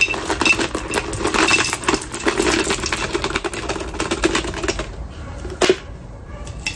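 Crushed stone (brita) mixed with sphagnum moss poured from a cut-down plastic PET bottle into a terracotta orchid pot: a dense run of rapid small clicks and rattles as the pebbles slide out and drop. The pouring stops about five seconds in, and a single sharp knock follows as the bottle is put down on the table.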